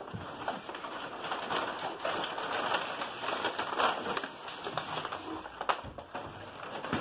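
Brown kraft paper wrapping crinkling and rustling, with scraping against cardboard, as a wrapped potted plant is slid up and out of a tall cardboard shipping box.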